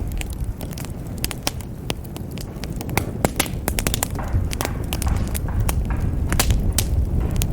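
Wood fire crackling in a fireplace: many sharp pops and snaps, several a second, over a steady low rumble of the flames.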